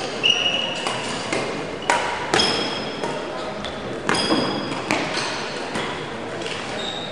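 Badminton rally in a large echoing sports hall: several sharp racket strikes on the shuttlecock, with short high-pitched squeaks of court shoes on the floor and voices in the background.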